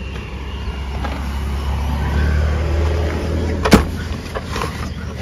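Hatchback tailgate of a small car being opened by hand, with a steady low rumble throughout and one sharp click about three and a half seconds in.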